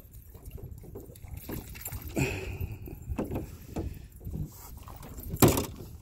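Knocks and clunks on the hull of an aluminum rowboat as the angler leans over the side handling the fishing line, about five in all, the loudest near the end. A brief high squeak comes about two seconds in.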